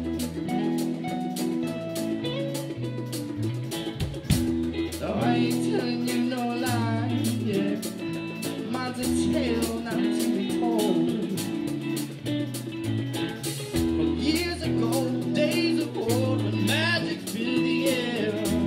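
Live band playing: electric guitars, bass guitar and a drum kit keeping a steady beat, with a male lead voice singing from about five seconds in.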